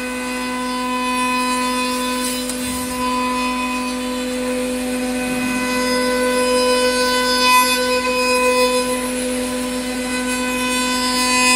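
Spindle of a 5-axis CNC router running with a steady, even-pitched whine while the cutter machines a curved wooden chair part, with cutting noise that swells and eases as the head moves.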